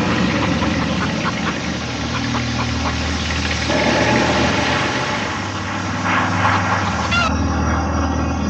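An engine running steadily at idle, with the sound changing abruptly about seven seconds in.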